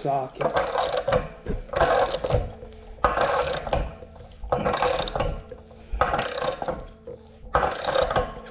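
A wrench tightening a threaded pipe fitting on a new water heater: a series of short scraping strokes, about one a second.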